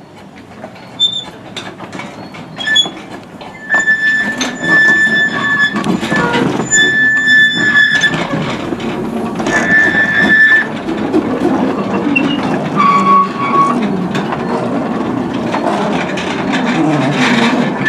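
Miniature narrow-gauge steam locomotive and its carriage running slowly over curved track and points, the wheels giving several short high-pitched squeals, one lower-pitched near the end, over clicks from the rail joints. The running noise grows louder about four seconds in as the train comes closer.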